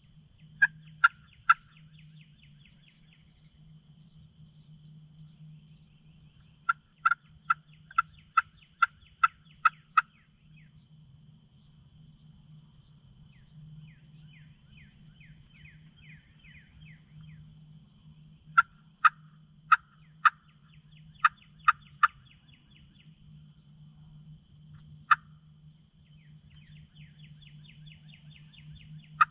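Turkey hen yelps worked on a friction pot call with a freshly sanded striker: loud, sharp, evenly spaced notes in short runs, three at the start, about eight around a third of the way in, and more runs later.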